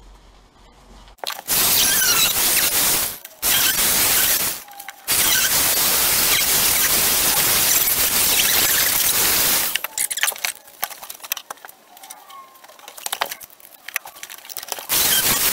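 Angle grinder with a cut-off disc cutting through the rust-rotted steel floor pan of a 1981 Rover SD1. It cuts in bursts: it starts about a second in, stops briefly twice, then runs steadily for several seconds. That is followed by a few seconds of scattered crackling and clicking, and it cuts again near the end.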